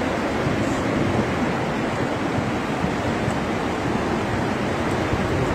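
Muddy floodwater rushing down a street in a storm torrent: a steady, unbroken rush of water.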